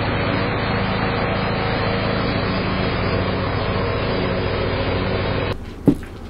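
John Deere riding lawn mower's engine running steadily as it drives across the grass, cutting off suddenly near the end. A short knock follows.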